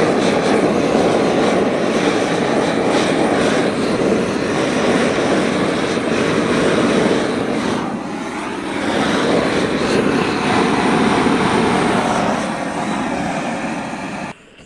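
Small handheld butane torch burning with a steady rushing hiss as its flame caramelises sugar on banana halves. The flame cuts off abruptly near the end.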